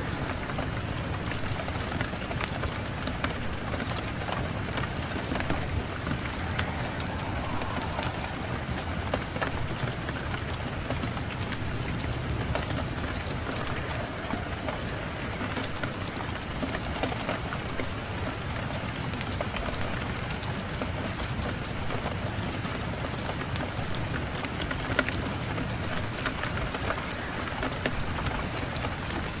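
Fireplace fire crackling, with frequent sharp pops and snaps over a steady low rush of wind.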